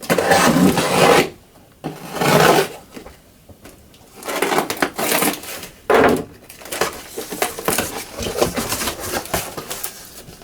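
A shipping box and its packing being opened and handled: several loud bursts of rubbing and scraping, then quicker, busier rustling from about six seconds in.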